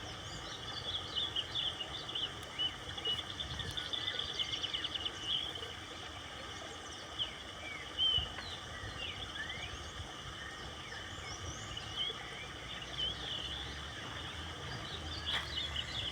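Several birds chirping and whistling over a steady hiss of running water, with a fast trill about three seconds in. A brief thump about eight seconds in.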